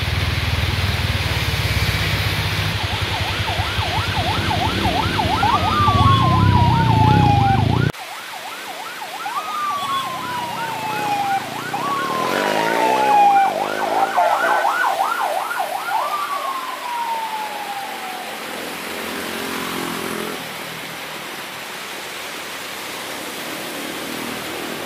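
Electronic vehicle siren alternating between a fast yelp, about four rises a second, and single wails that jump up and slide down in pitch. Over the first part it sits on a low rumble of engines that cuts off abruptly about eight seconds in. The siren stops a few seconds before the end.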